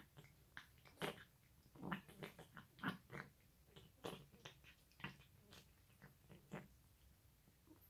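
A cat chewing and eating wet food, with irregular wet smacking clicks, a few each second.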